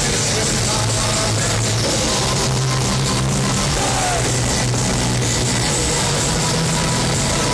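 Heavy metal band playing live at full volume in an arena, with electric guitars, heard from the stands.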